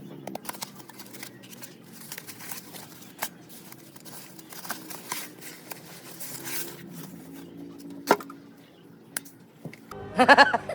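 Small clicks, taps and scrapes of a phone and repair tools being handled, with one sharper click about eight seconds in. Louder music comes in near the end.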